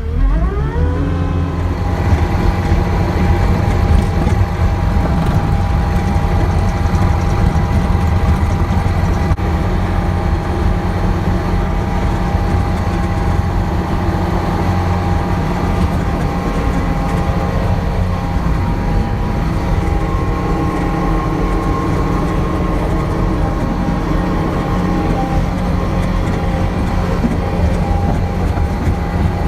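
Compact track loader's diesel engine revving up at the start, then running steadily as the machine drives, with a thin steady whine above the engine note.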